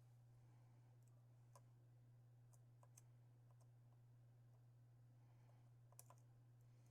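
Faint, sparse clicks of a lock pick and tension wrench working the pins inside an Assa Twin 6000 lock cylinder, a few isolated ticks spread over several seconds, over a steady low hum.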